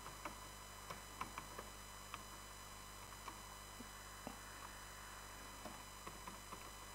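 Faint computer keyboard keystrokes: a scattering of light, irregular clicks over a steady electrical hum.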